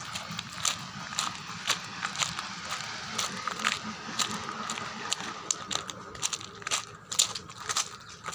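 Footsteps crunching on gravel at a walking pace, about two steps a second, over a faint steady high hum.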